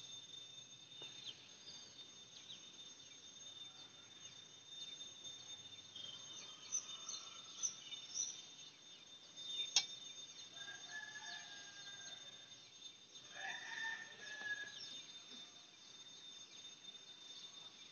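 Faint outdoor ambience: a steady high-pitched whine with small bird chirps, then a rooster crowing twice in the second half, the first call about two seconds long.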